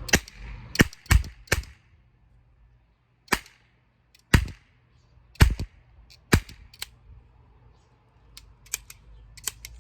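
Toy MP5 cap gun firing caps: about nine sharp shots at uneven intervals, a few clustered close together, followed near the end by a run of lighter, quicker clicks.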